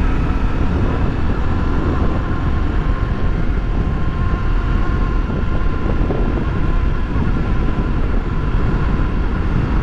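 Honda XRE300's single-cylinder engine running steadily while the motorcycle cruises, mixed with wind rushing over the microphone.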